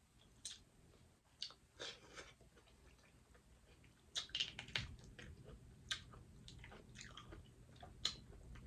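A person chewing food from a seafood boil close to the microphone: faint, wet mouth sounds with scattered clicks and smacks, a few louder ones about four to five seconds in and again near the end.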